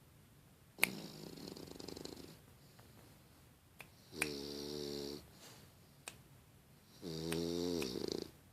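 English bulldog puppy snoring in her sleep: three snores about three seconds apart, the first raspy and the last two with a clearer, steady pitch.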